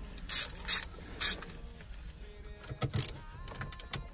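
Screwdriver working out the Phillips screws that hold a BMW E90's CCC navigation head unit in the dash: a few short, sharp rasping bursts, three within the first second and a half and one more about three seconds in.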